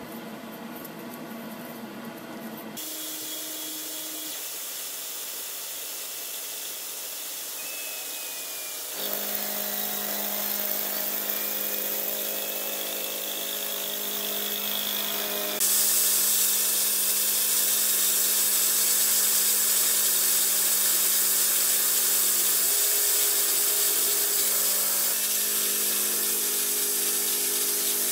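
CNC vertical milling machine running, its small end mill cutting the profile of a metal locomotive drive crank. About halfway through, a loud steady hiss of coolant spray from the nozzle at the cutter joins the machining sound.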